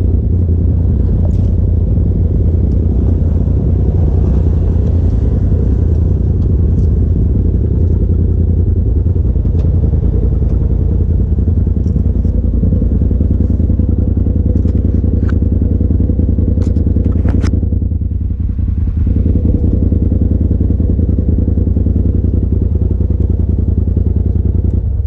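Polaris RZR side-by-side engine idling while parked, a loud steady drone with a few light clicks. It cuts off abruptly at the very end as the engine is switched off.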